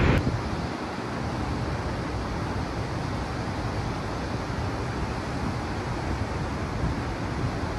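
Steady rush of water pouring from the open crest gates of Maruyama Dam's concrete gravity spillway during a flood release, together with the river running below.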